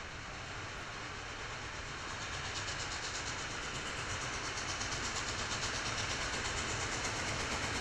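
Norfolk & Western 611, a J-class 4-8-4 steam locomotive, approaching: a steady rush of exhaust and running gear that grows steadily louder, with quick, even exhaust beats coming through from about a third of the way in.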